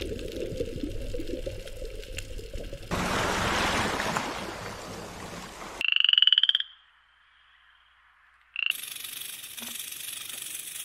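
Frog calling: one loud, high, pulsed trill lasting under a second about six seconds in, then a brief short call about two seconds later. Before it there are stretches of steady noise, and a high hiss follows the second call.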